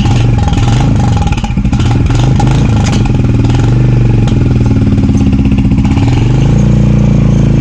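Royal Enfield Bullet motorcycle engine revved on its stand, its pitch climbing, holding high, dipping and climbing again near the end. A turbo-whistle insert in its exhaust silencer makes no whistle.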